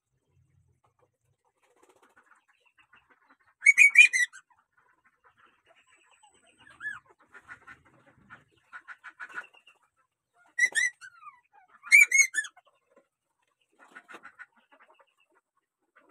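Young puppy yelping in short, high-pitched bursts, three loud ones about four, eleven and twelve seconds in, as it squirms while being held on its back and groomed, with faint rustling between.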